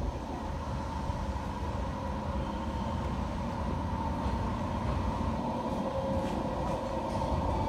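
JR East 485 series electric train approaching slowly, its low rumble growing gradually louder, with a steady hum running over it.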